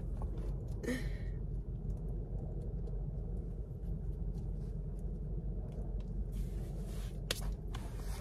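Steady low rumble of a car's interior with the engine running, with a short hiss about a second in and a few faint clicks near the end.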